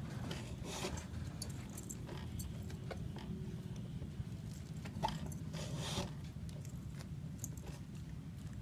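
Rustling, light scraping and small clicks of a white baseball cover piece being handled and pressed around a string-wound ball core, with a louder scrape about five seconds in, over a steady low hum.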